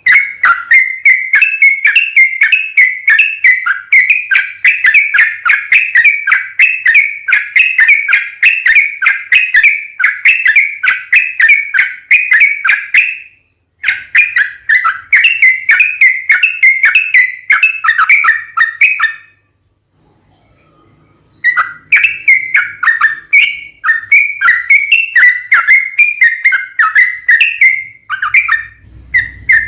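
Yellow-vented bulbul (trucukan) singing long runs of rapid, repeated chattering notes. The song breaks off briefly a little after 13 seconds and pauses for about two seconds near 20 seconds before starting again.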